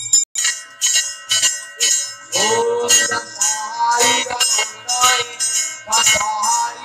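Music with a steady beat of about two to three strokes a second and a melody over it. The sound drops out for a moment just after the start.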